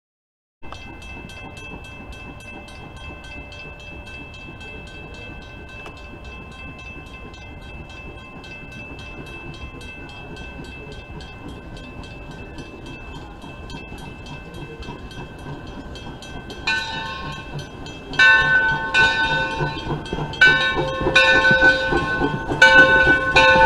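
Steam locomotive bell, on the Calumet & Hecla 0-6-4T tank engine Torch Lake, ringing with steady repeated strokes as the engine runs. It is faint at first and becomes much louder from about three-quarters of the way in as the engine draws close.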